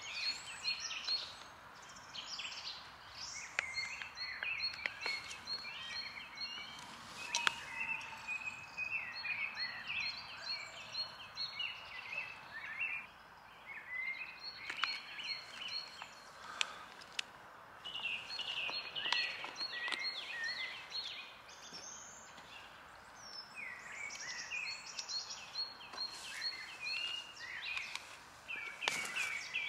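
Several songbirds singing in woodland, overlapping chirps, quick repeated high notes and short falling whistles, over a steady faint hiss. A few sharp clicks come in between, from small items being handled.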